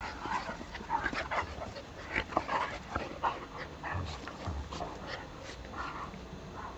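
A German Shepherd puppy and a Rottweiler play-fighting, making busy, irregular short dog noises that thin out after about four seconds.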